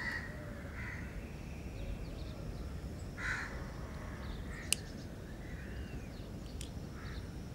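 Crows cawing a few times over steady outdoor ambience, the loudest caw about three seconds in. A single sharp click sounds a little past the middle.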